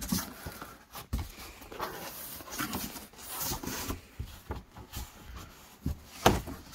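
A cardboard shipping box and the rubber floor mats inside it being handled: irregular rustling and scraping with a few knocks, the loudest about six seconds in.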